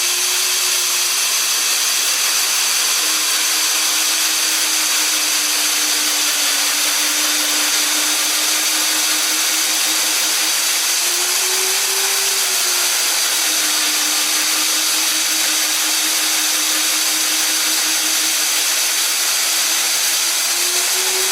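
DeWALT D21585 diamond core drill boring into a concrete foundation, its motor running steadily under load. The motor's whine rises briefly about twelve seconds in and again near the end, as the load on the bit eases.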